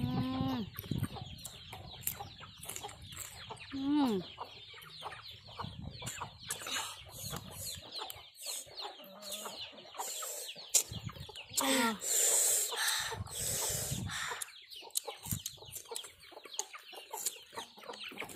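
Chickens clucking several times, with short falling calls, over the small clicks and smacks of people chewing fried fish.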